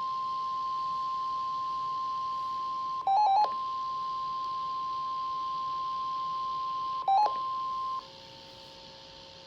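NOAA Weather Radio warning alarm tone: a single steady high tone that cuts off about eight seconds in. It is broken twice, about three and seven seconds in, by short, louder clusters of beeps from the receiver.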